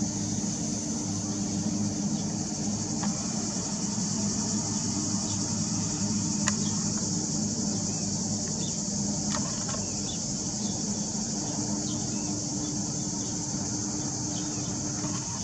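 A steady, high, shrill drone of cicadas over the low, steady hum of the arriving cruise ship's engines, with a few short bird chirps scattered through.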